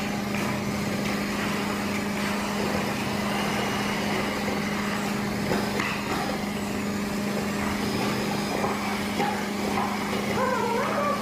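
Steady motor hum with a constant low tone, unbroken throughout. A voice starts near the end.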